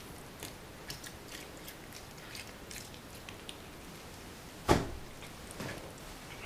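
Cat chewing a piece of melon: a scatter of small clicks, with a loud thump just under five seconds in and a softer one about a second later.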